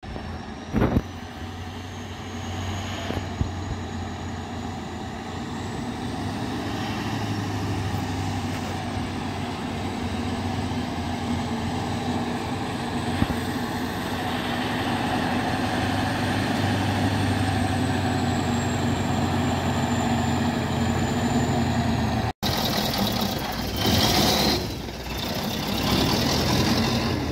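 MAZ timber truck's diesel engine running at low revs as the loaded truck moves slowly, a steady low hum with a faint high whine that slowly rises and falls. Near the end comes a short loud hiss.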